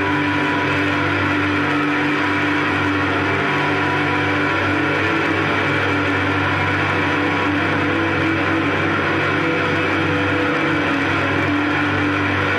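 Electric guitar played through effects pedals and a Fender amplifier, holding a dense, steady drone of sustained tones over a hissing wash, with no separate notes picked out.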